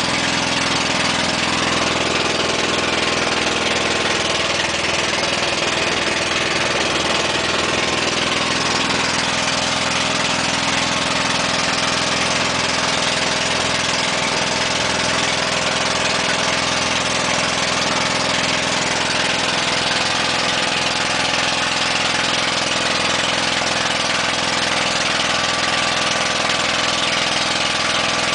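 Small passenger boat's engine running steadily under way, an even drone with a strong rush of wind and water over it.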